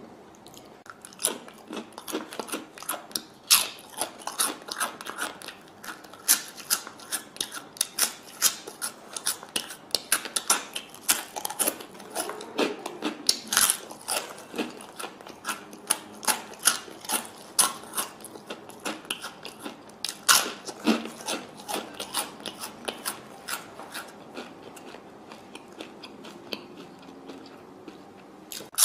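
Close-up chewing and crunching of dry, crunchy snack mix (tortilla chips, potato sticks and corn puffs) eaten by hand: a dense, uneven run of sharp crackles and bites that starts about a second in.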